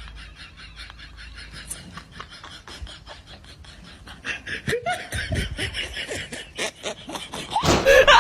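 Laughter in quick repeated pulses, getting louder from about halfway and loudest near the end.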